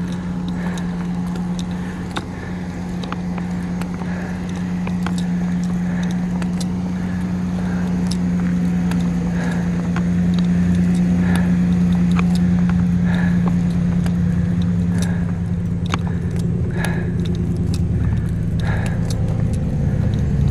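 Engine and road noise heard from inside a moving car: a steady low hum that grows slowly louder, with scattered light clicks over it.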